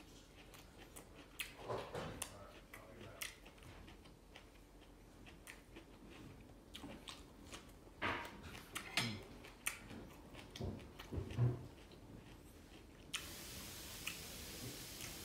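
A person chewing and crunching raw vegetables, kale leaves among them, with scattered crisp crunches and small mouth clicks. The loudest run of crunching comes about eight to twelve seconds in.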